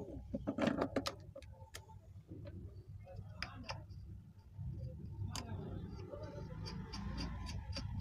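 Plastic clicks and knocks as a table fan's red plastic blade is fitted onto the motor shaft and its plastic spinner cap is turned onto the shaft, ending in a regular run of ticks about four a second as the cap is screwed down.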